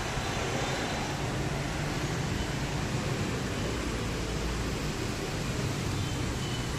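Steady hiss of rain falling, with street traffic running underneath.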